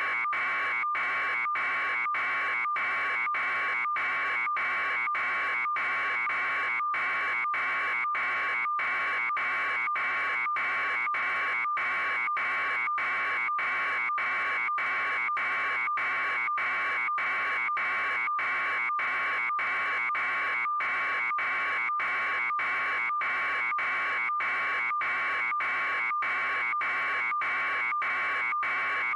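A steady, high electronic buzz, broken by brief, evenly spaced dropouts about every two-thirds of a second.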